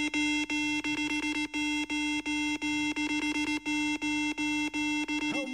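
Huawei Watch GT3's built-in speaker playing its water-ejection tone, which shakes water out of the speaker after swimming. It is a steady low electronic tone pulsing about three times a second, cutting off near the end.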